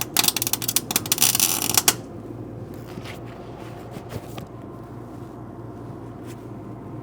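A MIG welder laying a tack weld on thin, old sheet metal: a loud, dense crackle lasting about two seconds. After it there is a low steady hum and a few faint clicks.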